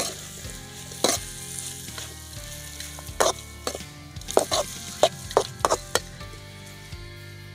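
A spatula stirring and scraping chicken pieces in masala round a metal kadai over a frying sizzle. There is a quick run of sharp scrapes against the pan from about four to six seconds in.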